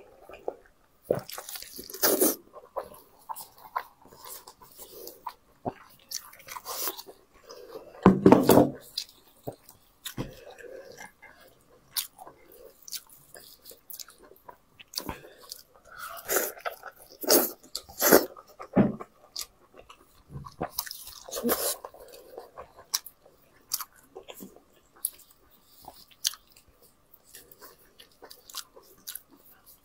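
Close-up eating sounds: chewing and biting into braised sheep's head meat, with wet tearing as gloved hands pull pieces apart. Irregular bursts, the loudest about eight seconds in.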